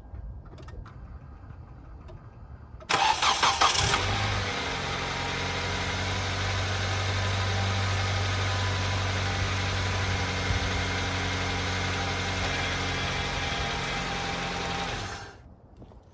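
2010 Kia Soul's four-cylinder engine cranks and starts about three seconds in, idles steadily, and is switched off near the end. With its accessory belt freshly tightened, the start-up belt squeak is gone.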